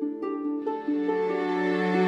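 Slow instrumental background music: separate plucked notes, joined a little past a quarter of the way in by fuller, held notes.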